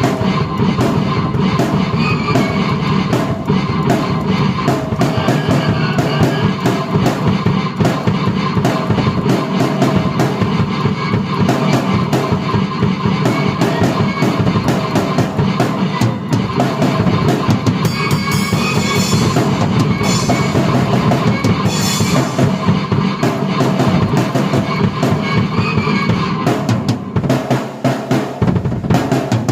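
Drum kit played in a busy rock rhythm with bass drum and snare, while a keyboard plays a melody over it, both played at once by one player. Cymbals ring brighter in the second half.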